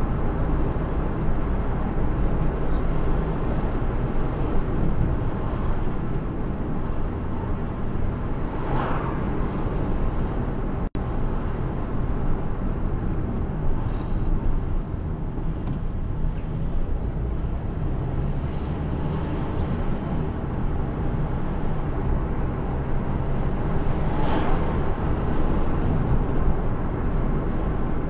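A car driving along a road, with a steady low rumble of engine and tyre noise. There are two brief swells of rushing noise, about nine seconds in and again near the end, like vehicles passing. The sound cuts out for an instant about eleven seconds in.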